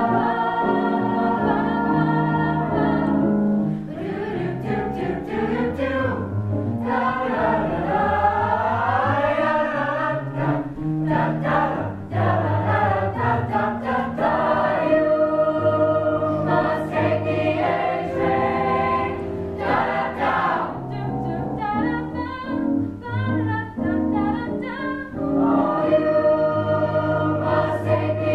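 Mixed-voice choir of teenage girls and boys singing in close harmony, held chords alternating with moving, wavering lines.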